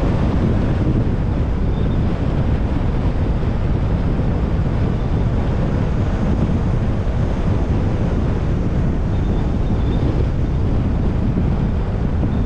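Steady wind and road noise of a car on the move, with wind rushing over the microphone.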